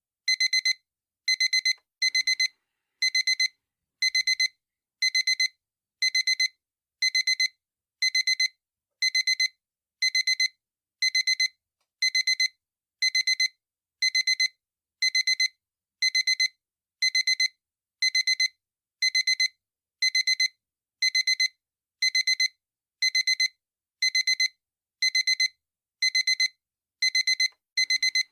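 Digital alarm clock beeping: short bursts of rapid high-pitched electronic beeps, repeating steadily about once a second.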